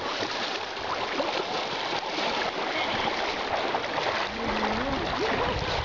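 Creek water flowing steadily over a shallow streambed, with a few short pitched calls about four and a half seconds in.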